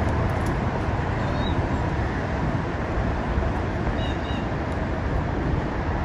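A steady low rumbling noise, with two faint short high chirps about a second and a half in and again near four seconds.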